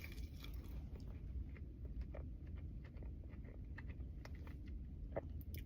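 A person chewing battered fish, with small crunches and mouth clicks scattered through, over a low steady hum.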